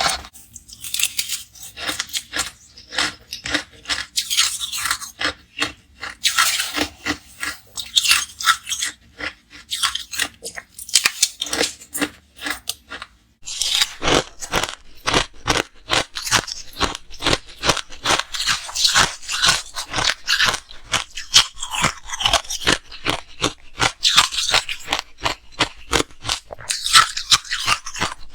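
Ice being bitten and chewed close to the microphone: a fast, uneven run of crisp crunches, several a second, with a short pause about halfway through.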